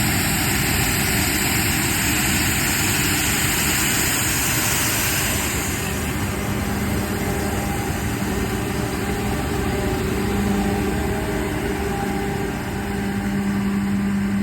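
A combine harvester with a Shelbourne stripper header runs steadily while harvesting wheat. A loud rushing hiss dominates the first several seconds, then eases, and a steady low engine hum comes through.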